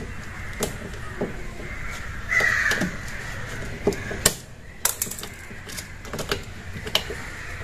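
Scattered sharp clicks and snaps of a washing machine's wiring and cable ties being cut and handled. A short bird call comes about two and a half seconds in.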